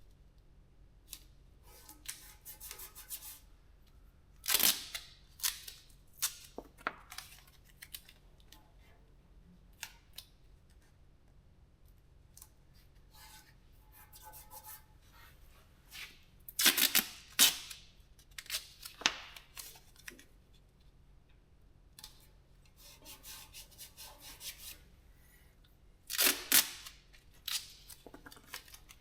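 Masking tape being pulled off the roll and torn, in short ripping bursts with pauses between; the loudest rips come about four and a half seconds in, around seventeen seconds and near the end.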